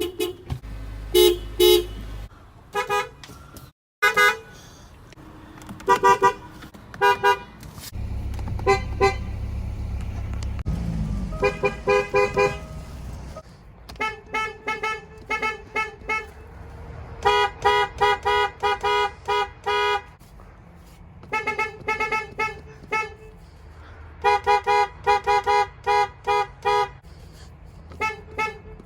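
Car horns from several different cars honked one after another, mostly in quick taps of a few short toots each with a few longer blasts, with abrupt cuts from one car to the next.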